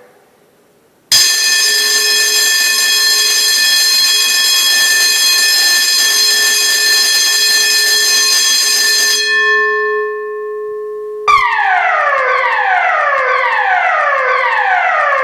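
Building fire alarm system sounding. After a brief pause a steady, buzzing alarm tone runs for about eight seconds, then stops and fades away. About eleven seconds in it switches to an evacuation tone of repeated sweeps, each about a second long, falling from high to low.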